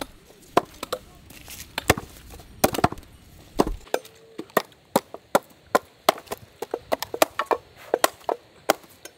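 Hooked sickle-like blades chopping palmyra sprouts (panang kilangu) against a wooden log: sharp, uneven chops, about two or three a second.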